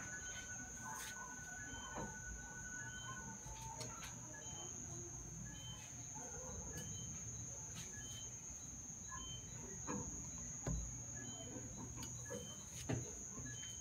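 A kitchen knife slicing boiled potatoes, with a few soft taps of the blade on the plate near the end. Behind it, short high chirps repeat about once a second over a steady high-pitched whine.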